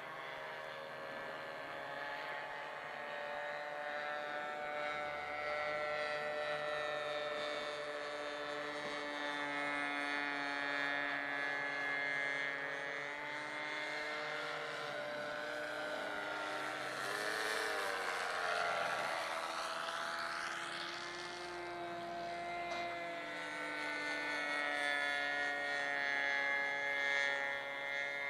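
Radio-controlled model warplane's engine running steadily as it flies overhead, its pitch sweeping up and down as it passes about two-thirds of the way through.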